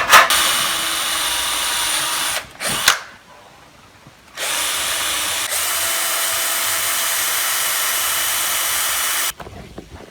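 Power drill running: a first run of about two and a half seconds, a short blip, a pause, then a steady run of about five seconds that cuts off sharply near the end.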